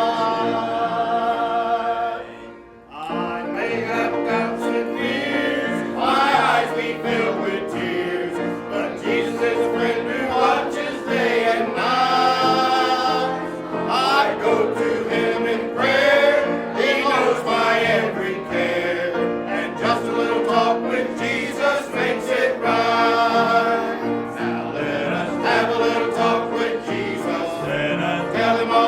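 Church congregation singing a hymn together, with a short break between lines about two and a half seconds in.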